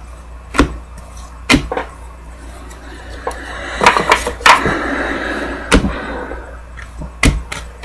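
A small stack of cardstock football trading cards being flipped through by hand. Sharp card snaps come every second or so, with a longer stretch of cards sliding against each other about halfway through.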